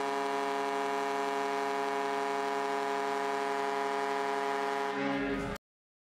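Arena goal horn sounding one long, steady blast, cutting off suddenly about five and a half seconds in.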